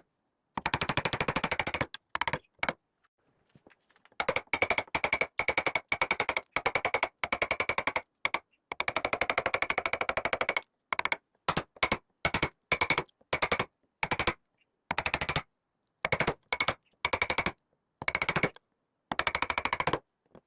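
Rapid drumming on wood, a fast roll of strikes in bursts of about half a second to two seconds with short silent gaps between them. Each burst carries a steady ringing tone.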